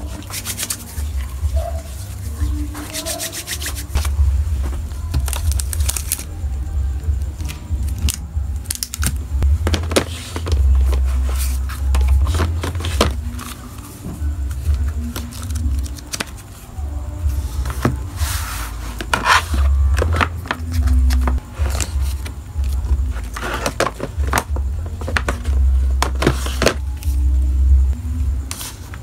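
Paper cards and packaging being handled on a desk: repeated rustling, scraping and light taps as cards are picked up and set down, over a steady low hum.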